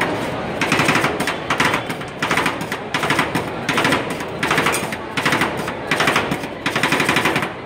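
Metal spatulas chopping and tapping rapidly on a steel cold plate as rolled ice cream is mixed: quick runs of clacking, each lasting under a second, with short pauses between them.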